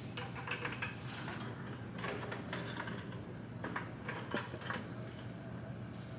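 Sand being poured by hand into a plastic load bucket hanging beneath a model bridge, loading the bridge during its test. It comes in three short gritty runs of about a second each.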